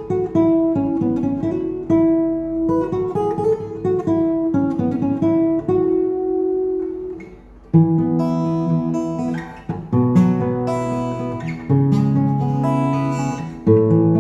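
Background acoustic guitar music: picked notes, a brief drop about halfway through, then strummed chords.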